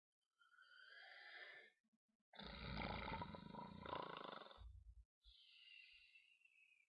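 A man snoring. A faint wheezy breath comes first, then a long rattling snore from about two and a half seconds in, and near the end a thin whistling breath that falls in pitch.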